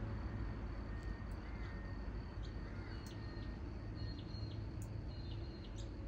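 Outdoor background: a steady low rumble with faint, high bird chirps now and then.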